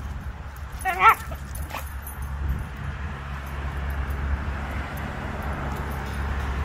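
A dog gives one short, high-pitched yelp about a second in, over a steady low rumble.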